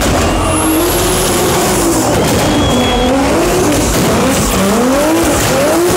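Drift car's engine revving hard, its pitch rising again and again in quick bursts in the second half, while the tyres squeal and skid as it slides sideways.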